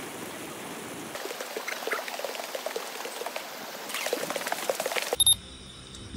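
Swimming-pool water splashing and sloshing, louder about four seconds in with a big splash, then cut off suddenly near the end.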